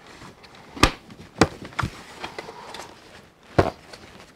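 Hard plastic pieces of a Hasbro Tantive IV Corridor playset clicking and knocking together as a door element's pegs are pressed into the corridor wall: several sharp clicks, the loudest about a second in and again late.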